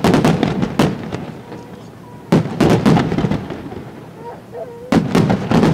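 Aerial firework shells from a Senatore Fireworks display bursting: three clusters of rapid, loud bangs, each lasting under a second and about two and a half seconds apart.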